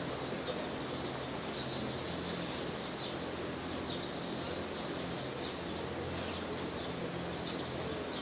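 Steady background noise with a low hum, and small birds chirping briefly and repeatedly throughout.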